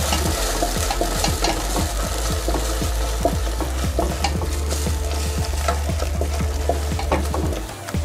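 Thickened sauce bubbling and sizzling in a nonstick wok while a wooden spatula stirs it, with many small pops and crackles.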